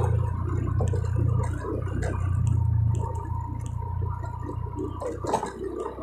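Motorcycle engine running while riding along, a steady low drone that eases off about halfway through. A brief knock about five seconds in.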